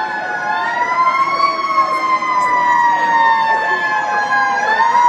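Fire truck siren wailing on an approaching tower ladder truck: the pitch climbs about half a second in, sinks slowly over the next few seconds, then starts to climb again near the end.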